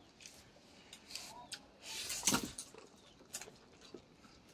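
Close-up eating sounds: a scattering of short wet clicks and smacks of a mouth chewing food, the loudest about two seconds in.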